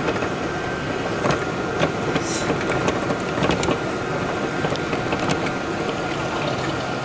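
A vehicle driving along, heard from inside: steady engine and road noise with scattered clicks and rattles.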